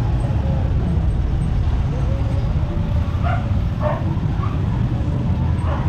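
Tricycle's motorcycle engine running steadily on the move, with a dog barking a few times past the middle.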